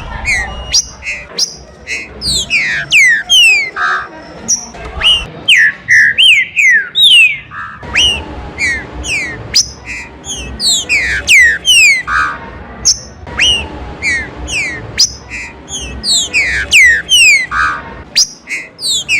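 Green-winged saltators (trinca-ferro) singing, a dense overlapping stream of quick whistled notes that slide steeply down in pitch, with short rougher notes every few seconds.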